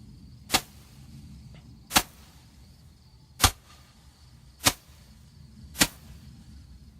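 Cutting Edge 10-ball 'magic' Roman candle firing its balls one at a time: five sharp pops, about one every second and a quarter to a second and a half.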